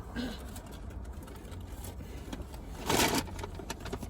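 Soft rustling and handling noises with faint clicks over a low steady hum, and a short, louder rustle about three seconds in.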